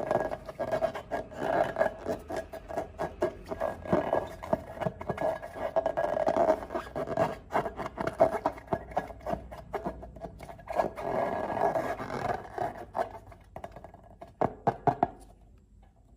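Slime being squeezed and worked by hand, with many small, quick wet clicks and crackles over a steady tone. It stops about fifteen seconds in.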